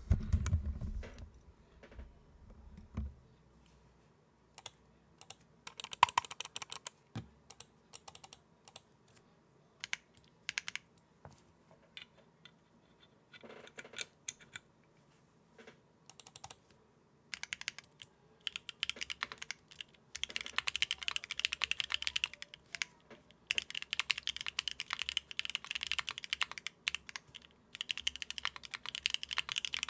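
Mechanical keyboard being typed on: Swagkeys Coco Black switches made by JWK in a KBDfans Agar with a polycarbonate plate, no foam and DCS keycaps. Scattered separate keystrokes at first, then fast, continuous typing from a little past halfway, broken by short pauses.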